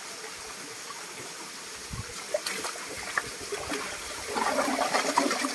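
Stream water trickling and flowing steadily, with a few sharp knocks about two seconds in and a louder, busier patch of sound near the end.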